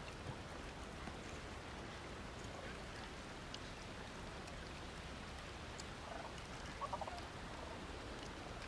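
A short, rapidly pulsed animal call about seven seconds in, over a steady background hiss with faint scattered clicks.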